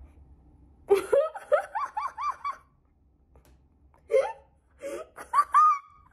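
Laughter: a burst of rapid, high-pitched ha-ha syllables about a second in, then after a short pause more bouts of laughing from about four seconds in.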